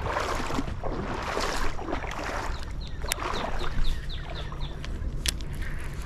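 Creek water sloshing and splashing in uneven swells, then a bird calling a quick run of about seven short falling notes past the halfway point. A single sharp click near the end.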